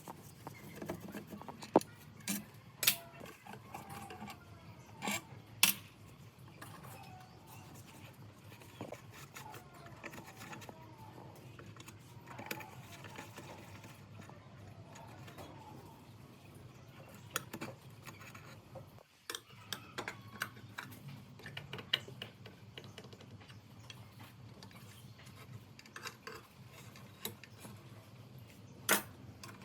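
Metal parts and hand tools clinking and tapping on a workbench, as in taking apart an old benchtop jigsaw: scattered sharp clicks and clinks, a few louder knocks, over a low steady hum.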